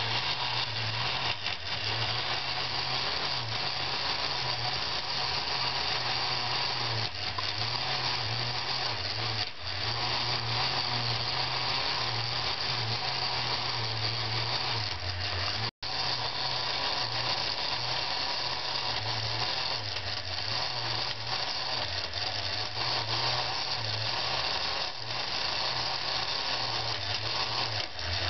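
Meccano model skid ride (Lightning Swirl) running: a small electric drive motor whirring with a wavering low hum while the metal cars and linkages rattle round the circular track. The sound cuts out for a moment about halfway through.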